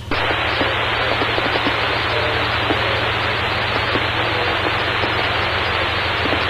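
Radio static: a steady, even hiss that switches on abruptly, as from a scanner with the squelch open and no one transmitting, over a low steady hum.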